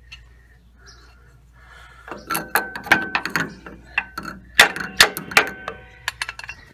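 Jack being worked under the front suspension of a 2006 Nissan Frontier to raise the wheel until the shock's lower bolt hole lines up. It gives an irregular run of sharp metallic clanks and clicks, some ringing briefly, starting about two seconds in and dying away near the end.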